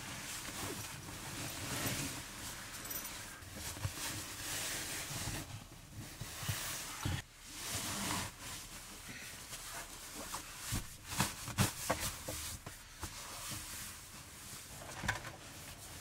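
Synthetic sleeping bag rustling as it is rolled up and stuffed into its stuff sack, with a few knocks in the second half.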